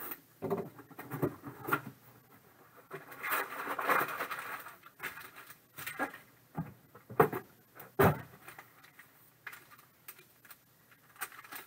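A cardboard box being slit open with a box cutter, then bagged trading cards in white bags lifted out and handled: rustling bags, light scratches and a few sharp knocks, the loudest about eight seconds in.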